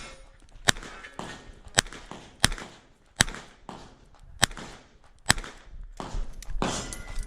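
Smith & Wesson 929 9mm revolver firing about six sharp shots, spaced roughly a second apart.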